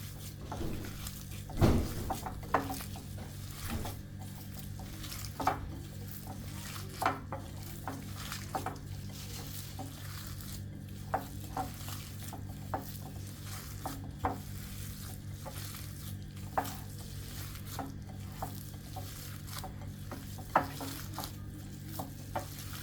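A utensil stirring and knocking against a cooking pot or bowl, with sharp, irregular clinks every second or so and one louder knock near the start. A steady low hum runs underneath.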